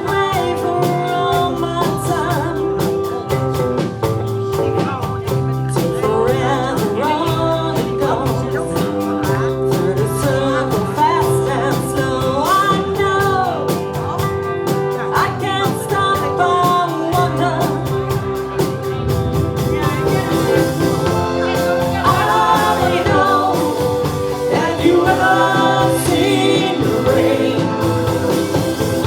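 Rock song played by a band with a lead vocal over steady instruments and a regular drum beat.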